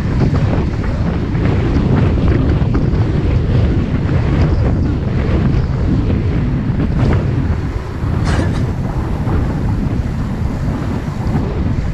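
Heavy wind rushing and buffeting on the microphone of a road bike rider going flat out in a sprint, a loud, steady rumble.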